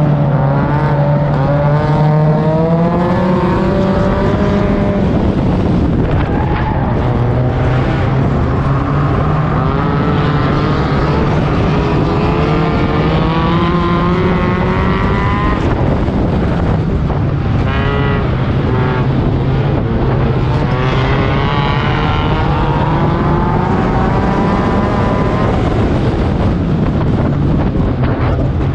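Four-cylinder race car engines running hard in a figure-8 race. A steady engine drone runs throughout, with engine notes rising and falling as the cars accelerate and slow through the turns.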